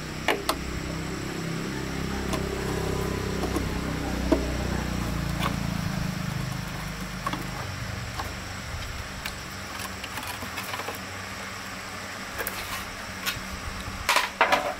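An engine running steadily, fading away a little past halfway, with scattered clicks and knocks throughout and a cluster of sharper knocks near the end.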